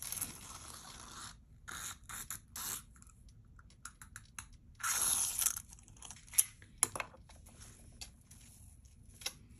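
A long silver-tone twisted-link metal chain necklace rustling and sliding as it is handled while its length is measured. The sound comes in several short scraping bursts, with a few sharp clicks in the second half.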